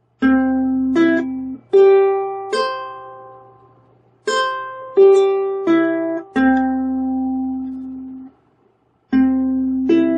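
Ukulele picking the four strings of a C chord one at a time, imitating the two-tone public-address announcement chime: a four-note rising phrase, then a four-note falling phrase, each note ringing into the next. A third phrase begins about nine seconds in.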